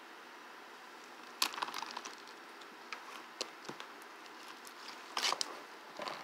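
Over-activated foam ball slime being pressed with the fingers, the foam beads crackling and popping in a few short bursts, loudest about a second and a half in and about five seconds in.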